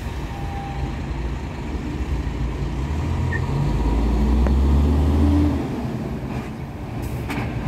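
Road vehicles pulling away across the railroad crossing once the gates lift: a low engine rumble that builds to its loudest about four to five seconds in, then eases off.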